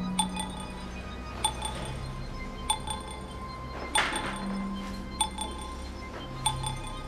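Laptop new-mail notification chime: a bright bell-like ping repeating about every second and a quarter, six times, over a low sustained music drone. A short burst of noise comes about four seconds in.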